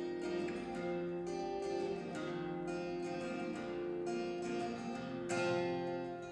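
Plucked-string music, guitar-like, with repeated picked notes over held tones, played as reference audio through a studio monitor.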